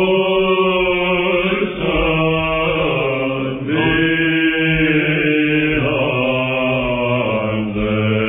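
Two Athonite monks singing Byzantine chant in the plagal fourth mode: one voice carries a slow, ornamented melody over the other's steady held drone (the ison). The recording is an old narrow-band radio recording.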